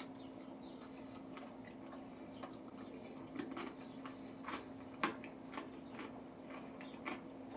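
Cold, crispy fried chicken being chewed with dentures and picked apart by hand: scattered small clicks, crackles and crunches, the sharpest about five seconds in.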